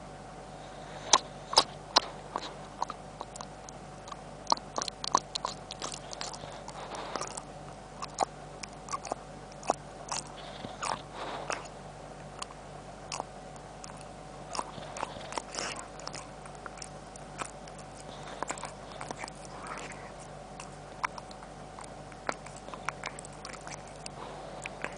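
A boxer dog's jowls and chops clicking and smacking, many sharp irregular clicks in a row, the loudest few about a second in.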